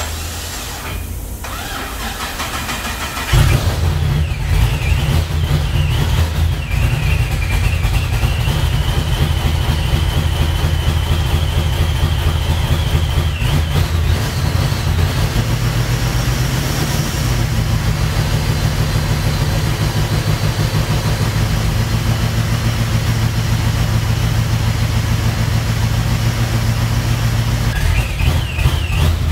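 Supercharged 408 cubic-inch stroker V8 in a VX Commodore starting up, catching suddenly about three seconds in and settling into a steady idle. A high whine rides over the idle for several seconds.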